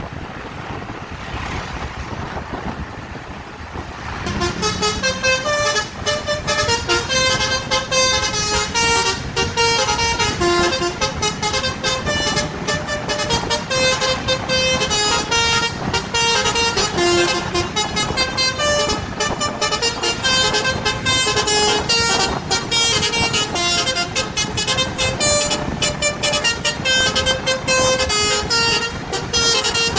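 Bus 'basuri' telolet horn, a set of multi-tone air horns sequenced by a horn module, playing a fast melody of short stepped notes that starts about four seconds in and carries on nearly to the end. Before it, steady wind and road noise.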